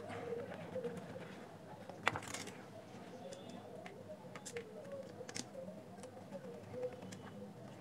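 Scattered faint clicks and ticks of a small screwdriver turning screws into the plastic housing of a JBL Flip 2 Bluetooth speaker, with a slightly louder click about two seconds in.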